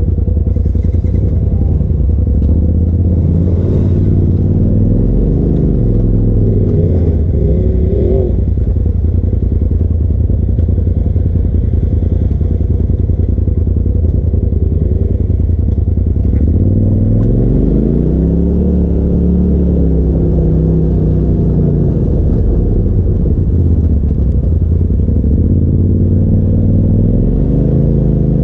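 Polaris RZR side-by-side's engine heard from the cab at low trail speed, rising and falling in pitch several times as throttle is given and let off, with the strongest rev about 17 seconds in.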